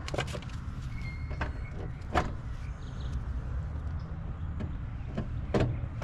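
A handful of sharp clicks and taps from hand work on the unit's wiring and capacitor, the loudest about two seconds in, over a steady low hum.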